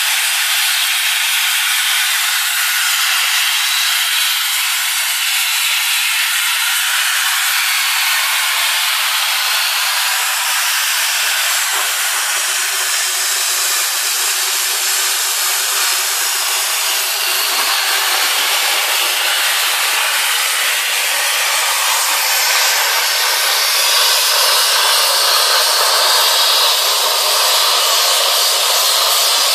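Cutting torch hissing steadily as it burns through a thick steel H-beam, throwing off sparks and molten slag.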